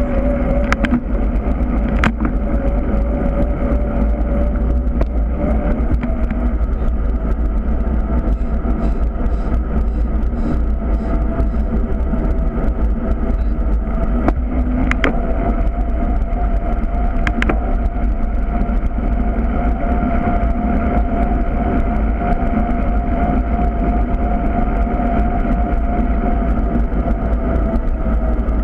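Steady wind rumble and road noise picked up by a camera on a moving bicycle rolling over asphalt, with a faint hum that slowly rises in pitch and three sharp clicks.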